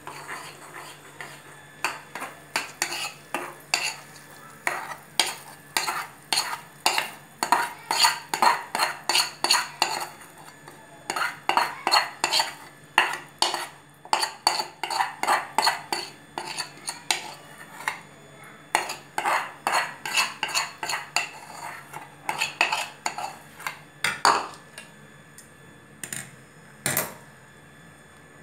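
Metal spoon scraping and knocking against a metal pan and steel plate while scooping out and spreading thick burfi mixture: a quick, uneven run of clinks and scrapes, thinning to a few knocks over the last few seconds.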